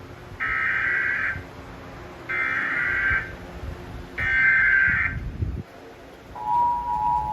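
Emergency Alert System tornado warning: three one-second bursts of screechy data tones (the SAME header) about two seconds apart, then the steady two-tone attention signal starting near the end.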